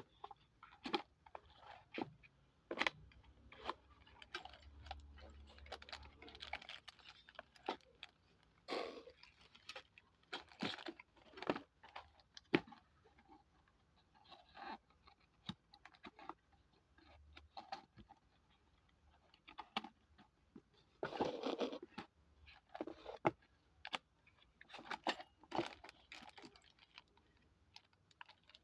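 Hands handling a thin-plate TV wall bracket and its packaging: irregular clicks and knocks of metal parts, with crunching and tearing of wrapping, and a longer rustle about three quarters of the way through.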